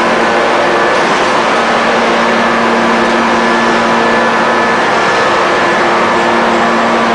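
Hydraulic open-die forging press running: a steady mechanical drone with a constant pitched hum of its hydraulic power unit over a broad noise, with no strikes or pauses.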